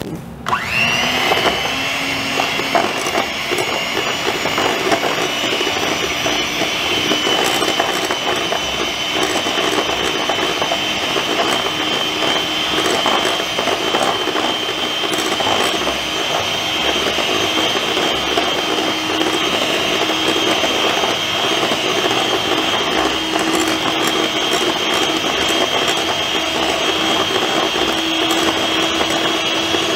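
Imarflex electric hand mixer starting up about half a second in, then running with a steady whine at moderate speed, its beaters creaming butter and sugar in a glass bowl.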